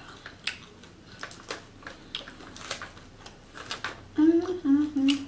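Close-up crunchy chewing of Caesar salad with croutons, and sharp clicks of a plastic fork against a plastic bowl, coming irregularly. About four seconds in, a woman starts humming a tune that steps down in pitch, louder than the eating sounds.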